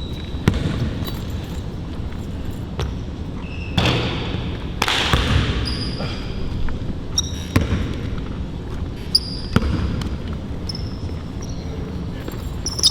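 Basketball bouncing on a court during one-on-one play, the bounces coming at uneven intervals, with short high sneaker squeaks on the floor in between.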